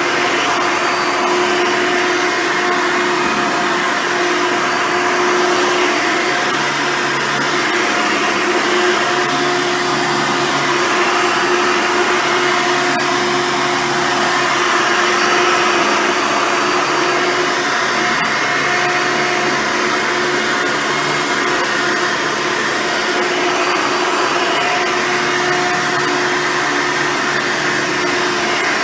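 Hoover Soft & Light Supreme vacuum with its original 7-amp motor, running steadily while vacuuming: a continuous rushing whine with a steady hum under it that swells and fades a little every few seconds.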